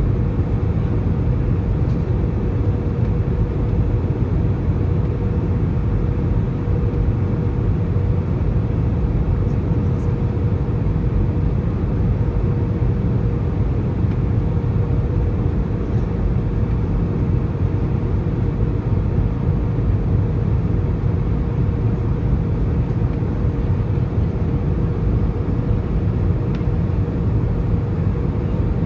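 Cabin noise inside an Airbus A320 in flight on approach: the steady low roar of the engines and the airflow over the fuselage, with a constant mid-pitched hum running through it.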